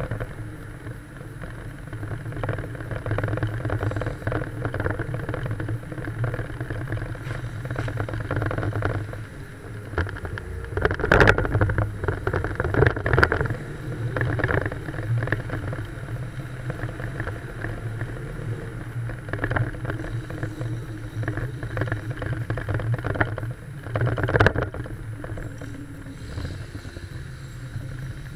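Old car driving on city streets: a steady engine and exhaust drone with road noise and wind on a microphone mounted outside the car. The sound swells louder in short surges about a third of the way in and again near the end.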